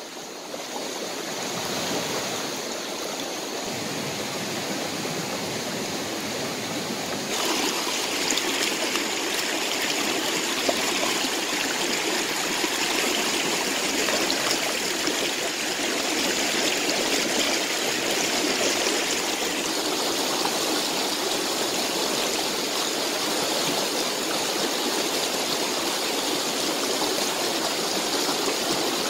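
Shallow rocky stream rushing over stones: a steady wash of water noise that gets louder and brighter about seven seconds in.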